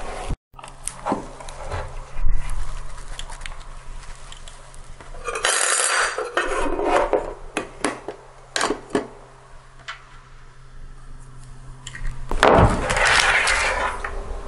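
Hands working on a motherboard with its CPU cooler and cables: scattered small clicks and clinks of hard metal and plastic parts, with two longer rustling, scraping stretches, about five and a half seconds in and again near the end, over a faint steady hum.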